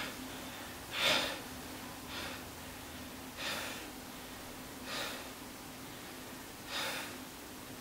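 A man breathing audibly, about five breaths a second or so apart, as he catches his breath after a set of abdominal exercises, over a faint steady hum.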